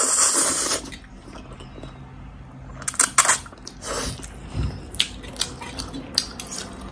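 A person slurping up a mouthful of spicy instant noodles in one loud slurp, then chewing, with a cluster of wet smacks about three seconds in and scattered small mouth clicks after.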